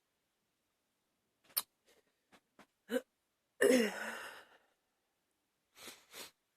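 A woman with a cold sneezes once: a few small catches of breath, then one loud explosive burst that drops in pitch, followed near the end by two short sniffles.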